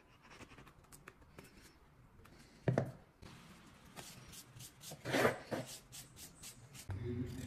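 Wood being handled and worked by hand: light rubbing and scratching with small clicks, a knock about three seconds in and a longer scrape around five seconds in. A low steady hum starts near the end.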